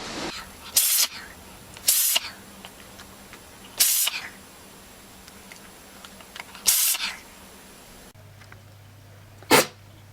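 An animal sneezing five times, each sneeze a short, sharp, hissy burst, the first four coming about one to three seconds apart.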